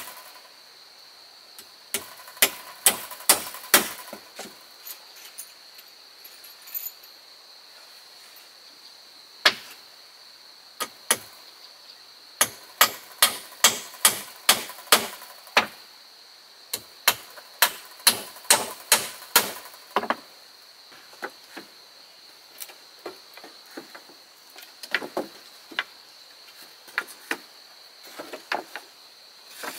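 A hand tool striking wood in runs of quick blows, about two a second, with pauses and single knocks between, as in building a wooden railing. A steady high insect drone runs underneath.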